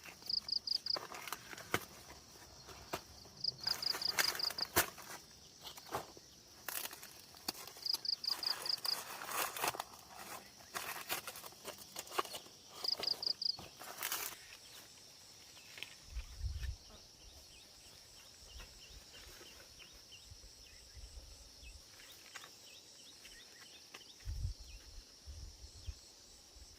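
Footsteps and rustling through plants over a steady high-pitched insect drone. Four short rapid chirping trills sound in the first half, and a few dull low thumps come later.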